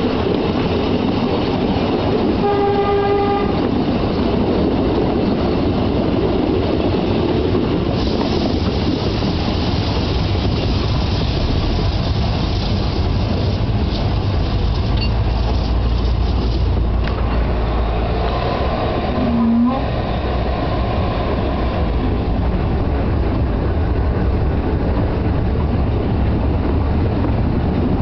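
Narrow-gauge Welsh Highland Railway train on the move: a steady rumble and clatter of wheels on rail. The locomotive gives one short toot about three seconds in, and a brief lower tone sounds about twenty seconds in.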